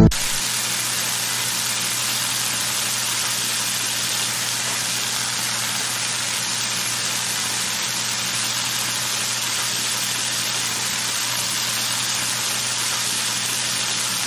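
Pancakes frying in a pan: a steady, even sizzle at one level, with a faint low hum beneath it.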